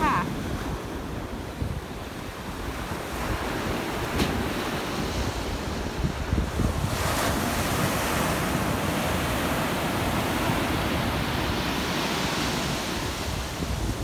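Storm-driven surf breaking on a sandy beach and washing up the sand, with wind buffeting the microphone. About seven seconds in, the wash of a wave swells louder for several seconds.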